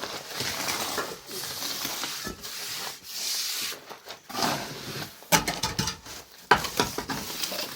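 Handling noises: repeated scraping and rubbing, with two sharp knocks in the second half.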